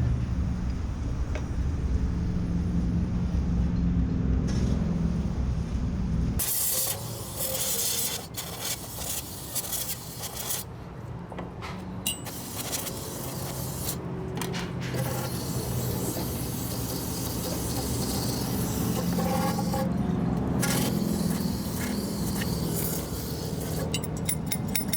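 Motorcycle fork parts being cleaned with repeated spells of hissing spray, one running steadily for several seconds. A steady low machine hum fills the first six seconds and comes back briefly later.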